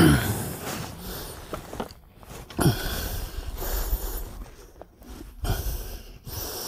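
A man grunts once at the start, then breathes in short, irregular bursts over a low rumble, as he strains against a hooked fish on a long fishing pole.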